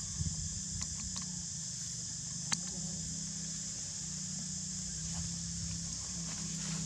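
Insects droning steadily at a high pitch, with a low steady hum underneath and a few sharp clicks, the sharpest about two and a half seconds in.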